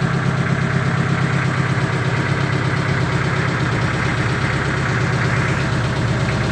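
A small boat's engine running steadily, a constant low hum with no change in speed.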